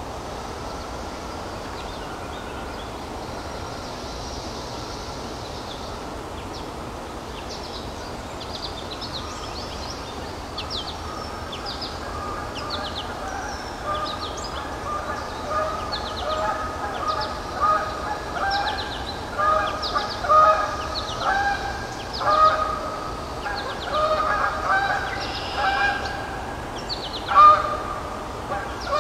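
Repeated short honking animal calls in quick clusters, starting about a third of the way in and getting louder, with brief high chirps above them and a steady outdoor hiss underneath.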